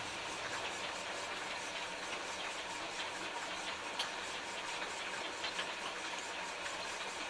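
Potter's wheel turning under a clay jar being shaped by hand: a steady mechanical running noise with a fast, regular ticking, and one louder click about four seconds in.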